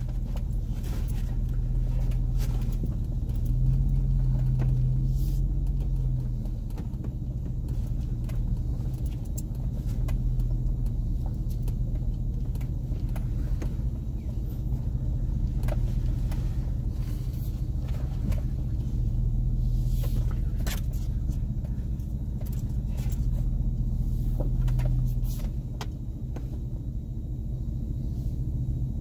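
Chevrolet Silverado pickup crawling along a rough off-road trail: the engine hums low and steady, swelling a little about four seconds in and again near the end. Scattered knocks and rattles come through as the truck works over the bumps.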